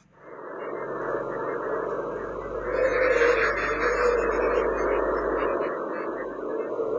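Sonified space recording presented as the sound of Mars: a steady hissing drone with a low hum. It fades in at the start and swells a little about three seconds in. It is planetary magnetic-field (electromagnetic) data converted into audible sound.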